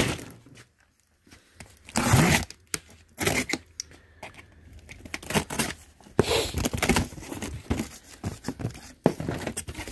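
Packing tape being cut and ripped off a cardboard box and the cardboard flaps pulled open, in a series of short, irregular tearing and crinkling sounds, the loudest about two seconds in.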